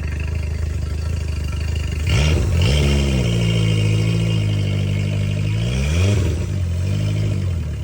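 Yamaha outboard engine idling, revved up about two seconds in, held at higher revs for about three seconds, then dropped back to idle. It is running on a new starter with a freshly cleaned throttle body.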